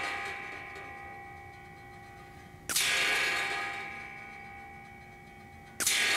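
Benjamin Gunnar regulated PCP air rifle firing twice, about three seconds apart. Each shot is a sharp report followed by a long ringing decay of two to three seconds.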